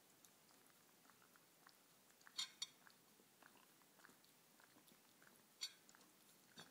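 Whippet licking cream off a plate: faint, quick wet licks throughout, with a louder pair of clicks about two and a half seconds in and another about five and a half seconds in.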